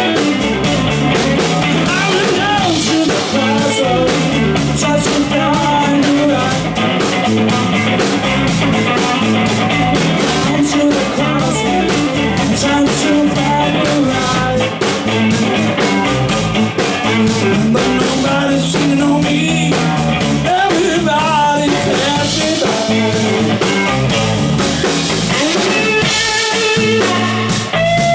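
Live rock-and-roll band playing: electric guitar, electric bass and a DW drum kit with cymbals, steady and loud.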